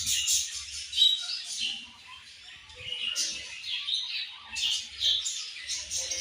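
A group of budgerigars chirping and chattering in quick, overlapping short calls, with a brief quieter lull about two seconds in.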